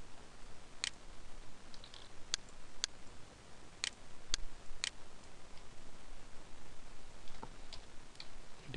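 Sharp, irregular clicks of a computer mouse and keyboard being worked, about six in the first five seconds and a few fainter ones near the end, over a steady microphone hiss.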